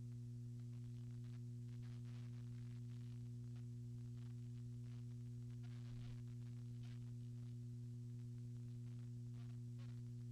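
Steady low electrical hum, with several higher overtones, over faint hiss: no bar sounds come through clearly.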